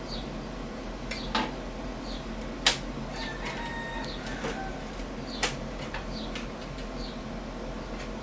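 Sharp clicks and knocks of table-saw parts and packaging being handled, four in all, the loudest about two and a half seconds in. A faint high chirp repeats about once a second behind them.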